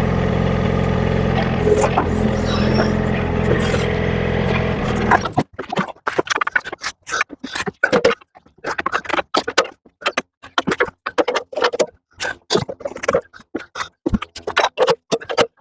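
Excavator diesel engine running steadily, cutting off abruptly about five seconds in. It is followed by a string of short, irregular scraping and knocking sounds with brief quiet gaps between them.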